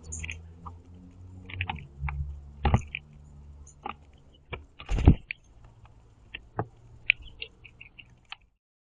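Blue jays feeding on a platform feeder: scattered sharp taps of beaks and feet on the feeder as they scoop up seed, with short, quiet, squeaky calls between them. The loudest tap comes about five seconds in, and a low hum sits under the first two seconds.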